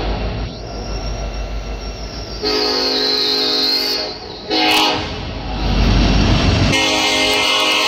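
Freight train locomotive air horn sounding over the rumble of the passing train, in two long loud blasts: one from about two and a half seconds in lasting about two seconds, and another starting near the end.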